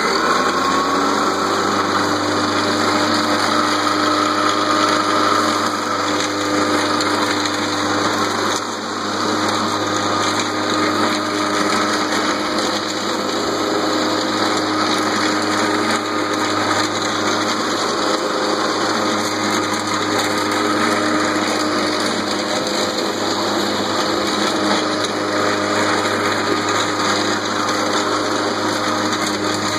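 Craftsman 18-inch corded electric lawn mower running, its motor and blade spinning up to a steady whine in the first second and then holding it while cutting grass. The level dips briefly about eight and a half seconds in.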